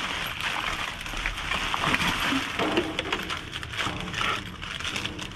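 Hands rummaging through trash in a dumpster: continuous rustling and crinkling of bags and paper, with scattered small knocks and clicks.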